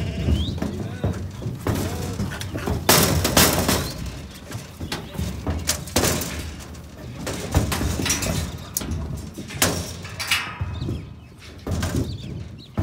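Steel sheep-yard gates and panels clanking and rattling as sheep crowd and push against them, in irregular sudden clatters several seconds apart.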